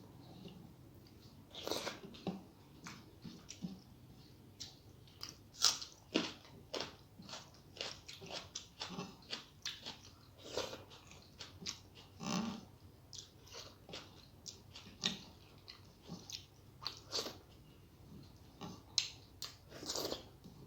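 A person chewing and eating a Bengali rice-and-curry meal, with irregular wet mouth clicks and smacks, sometimes several a second.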